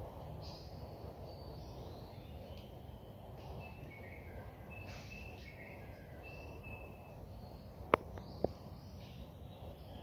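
Mangrove mudflat ambience: a steady low background hiss with faint, high, short chirping bird calls, several held notes through the middle. Two sharp clicks come close together about eight seconds in.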